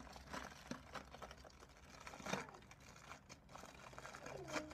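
Small clear plastic packaging bag crinkling as it is handled and opened by hand: a run of faint, irregular crackles, the loudest about two seconds in.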